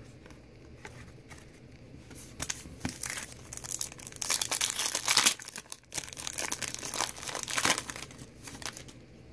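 Foil wrapper of a Panini Prizm trading-card pack being torn open and crinkled by hand, then rustling as the cards are slid out. The irregular crackling starts about two seconds in and comes in two louder spells.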